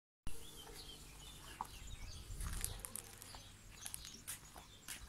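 Small birds chirping, with scattered light clicks and a low steady rumble underneath.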